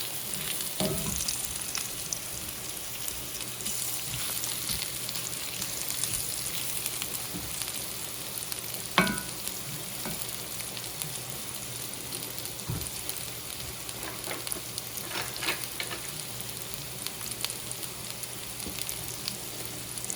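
Sliced beets sizzling steadily in a frying pan, with one sharp knock about nine seconds in and a few lighter clicks later.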